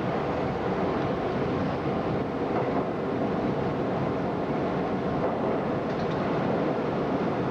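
R32 subway train running through a tunnel, heard from inside the lead car: a steady, unbroken noise of wheels on rail and running gear.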